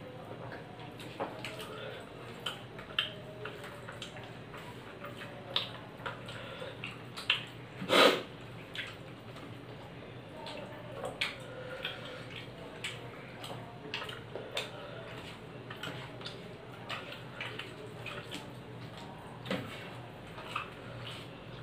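Two people eating rice and curry with their fingers from steel plates: scattered small clicks and soft wet sounds of hands mixing food on the plates and of chewing, with one louder knock about eight seconds in, over a faint steady hum.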